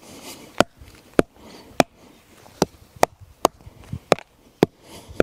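A hatchet chopping into packed earth: about nine sharp strikes, roughly two a second, as the air-inlet tunnel of a Dakota fire hole is dug out.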